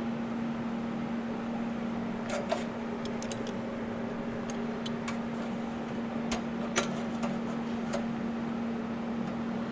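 Light metallic clinks and taps of stainless parts and clamps being handled and set in position, scattered between about two and eight seconds in, over a steady low hum.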